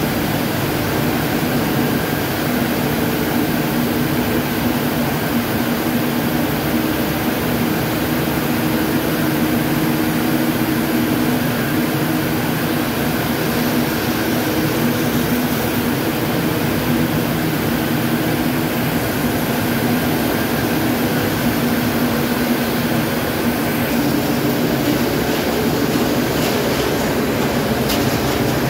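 Saurer Zinser Impact 72 XL ring spinning frames running, a steady whir of hundreds of spindles with a constant low hum, and a few light clicks near the end.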